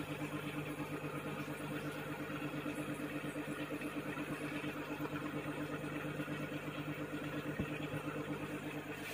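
Aquarium air pump running with a steady, fluttering hum, feeding the airstones in the fish tanks. A single short click about seven and a half seconds in.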